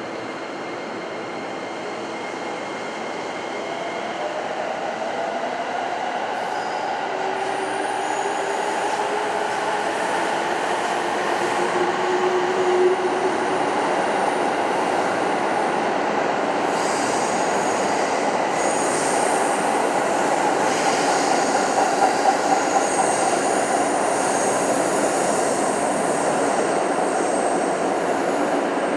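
Electric commuter train running through an underground station, its rumble growing louder over the first half and then holding steady, with high-pitched wheel squeal.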